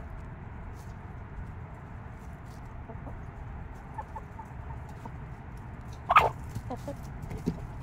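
Chickens clucking: a few soft clucks about four seconds in, then one much louder, sharper call just after six seconds, followed by a few softer clucks. A steady low rumble runs underneath.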